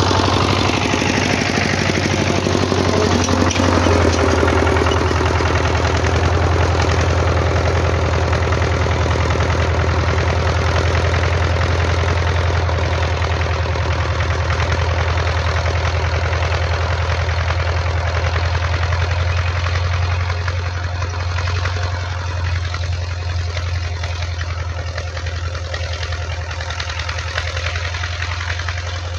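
Scout walk-behind tractor's engine running steadily under load while ploughing. Its pitch falls over the first few seconds, then the sound slowly grows fainter as the machine moves away.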